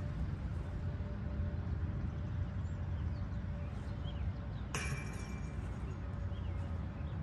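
Wind rumbling steadily on the microphone, with one sharp click and a brief metallic ring about two-thirds of the way through, as a disc golf disc is thrown. Faint bird chirps are heard now and then.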